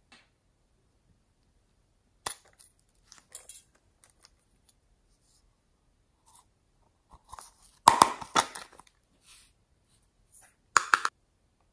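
Small plastic jar handled: scattered light clicks and scrapes, then a louder crackling clatter about eight seconds in. A short rattle near the end as snowflake glitter and sequins are shaken out of the jar onto slime.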